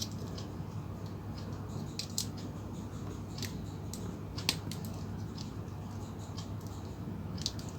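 Small plastic-and-metal clicks and rattles from a 9-volt battery snap clip being handled and pressed onto the battery's terminals: a few scattered sharp clicks, the loudest about four and a half seconds in, over a low steady hum.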